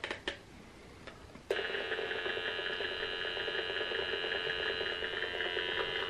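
Handheld EMFields Acoustimeter AM-10 RF meter switched on: after a couple of faint clicks, its speaker starts abruptly about one and a half seconds in with a steady buzz of several pitched tones. The buzz is the meter turning the radio-frequency signals it picks up from nearby electronics into sound.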